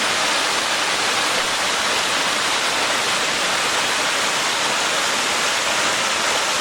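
Waterfall heard up close: a loud, steady, unbroken rush of falling water.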